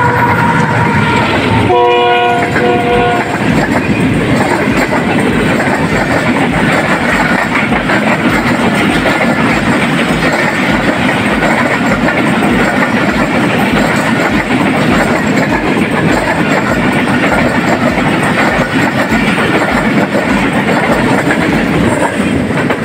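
Diesel-hauled express passenger train passing close at speed without stopping: the locomotive's horn sounds near the start, ending about three seconds in, then a long string of passenger coaches rushes by with a steady rhythmic clatter of wheels on the rails.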